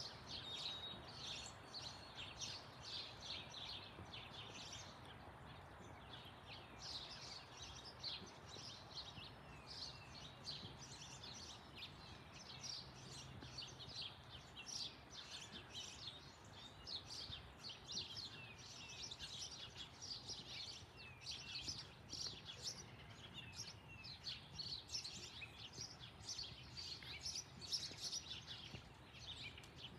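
Many small birds chirping busily and continuously. Underneath is a faint steady low rumble from an Airbus A320 jet airliner passing high overhead.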